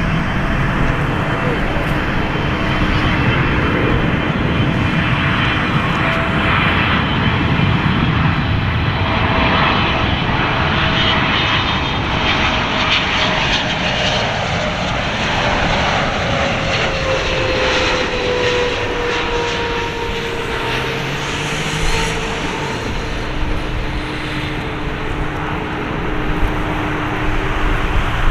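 Boeing 777-300ER's twin GE90-115B turbofans on landing approach: a loud, steady jet roar. A whine in it falls in pitch as the airliner passes.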